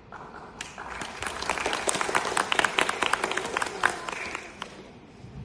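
Audience applauding: many hands clapping that swell up about half a second in and die away near the end.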